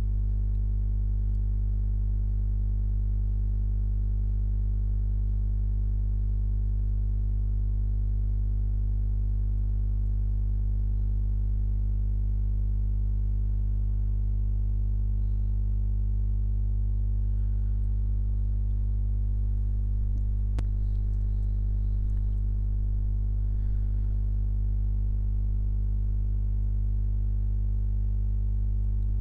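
A steady low hum with a stack of even overtones, unchanging in pitch and loudness throughout.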